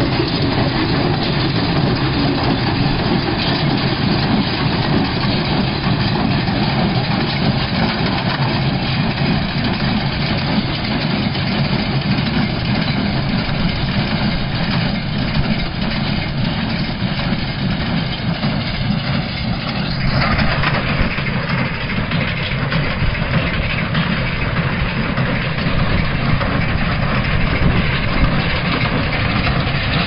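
Tractor engine running while a tractor-drawn side square baler works straw, a steady heavy mechanical din. A brighter hiss joins about two-thirds of the way in.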